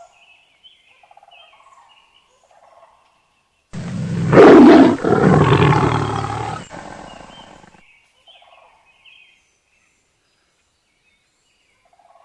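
Big cat roaring: one loud roar starts sharply near four seconds in, falls in pitch, and fades out over about four seconds. Faint short calls come before and after it.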